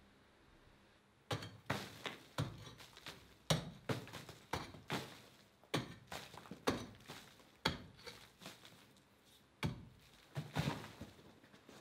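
Pick striking rock and hard earth over and over, a sharp blow every half second to a second with smaller knocks between, pausing briefly about two-thirds of the way through.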